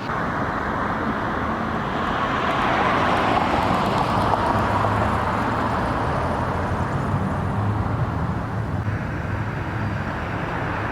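Road traffic noise: a steady rush of vehicles, swelling as one passes a few seconds in and then easing off.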